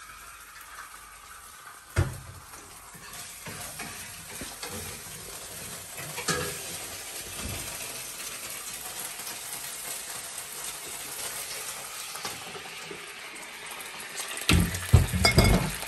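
Chopped vegetables frying in oil in a frying pan: a steady sizzle that builds a few seconds in, with a few loud knocks near the end as a wooden spatula stirs the pan.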